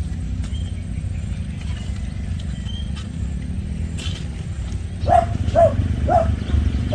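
Steady low rumble with faint high bird chirps. About five seconds in, an animal gives three short calls about half a second apart, the loudest sounds here.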